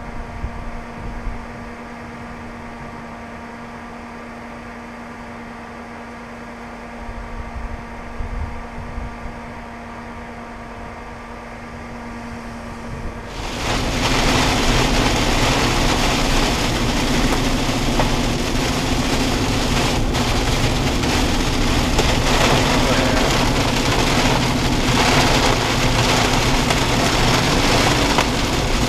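Steady hum of a vehicle idling, heard from inside the cabin. About halfway through, a heavy thunderstorm downpour suddenly hits the car, and the rain on the windshield and roof becomes a loud, steady rush.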